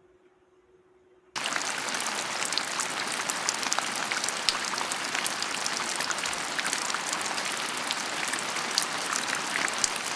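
Near silence, then about a second and a half in a rain sound effect cuts in abruptly: a steady, dense hiss of rainfall speckled with many small drop ticks.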